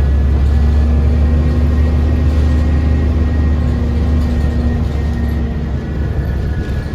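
Cummins ISL diesel engine and driveline of a 2010 Gillig BRT transit bus running under way: a steady low drone with a hum and a faint high whine over it, easing off slightly near the end.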